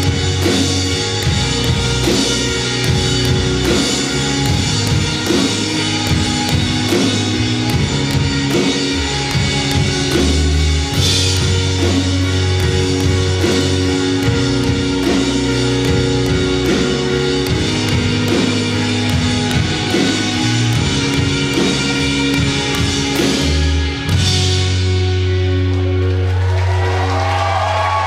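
Live rock band playing the end of a song, with drum kit, electric guitars and bass at full volume. About 24 seconds in the drums stop and a final held chord rings out.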